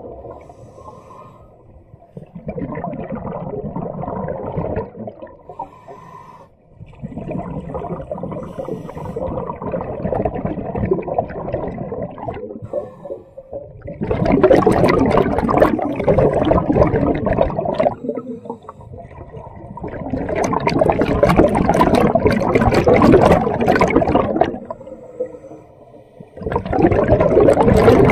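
Scuba diver breathing through a regulator underwater: slow breaths in long alternating stretches, the louder ones the exhaled bubbles rushing out, several seconds each, in the second half.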